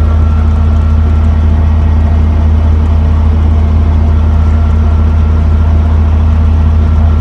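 Helicopter in flight: a loud, steady low drone of engine and rotor, with a faint higher whine that comes and goes.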